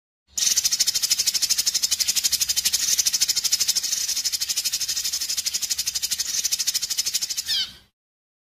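Recorded animal call used as a fill-in in songbird training audio: a fast, even rattling trill of about a dozen pulses a second, high-pitched. It runs for about seven seconds and ends in a brief downward chirp.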